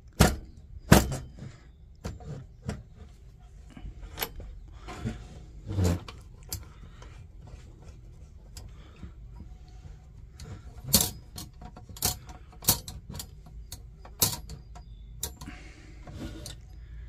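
Irregular metallic clicks and knocks from handling an old Bernz-O-Matic propane camp stove and its canister, several sharp ones louder than the rest.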